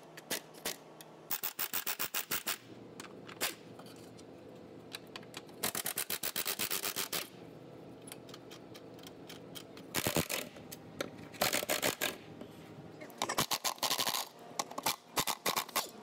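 Ratchet wrench on a long socket extension clicking in quick runs of about ten clicks a second, stopping and starting half a dozen times, as subframe mount nuts and transmission crossmember bolts are loosened.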